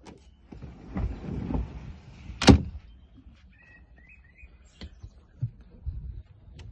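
A boat's fibreglass cabin door is slid and shut. The scraping slide ends in one sharp clack about two and a half seconds in, followed later by a few lighter knocks.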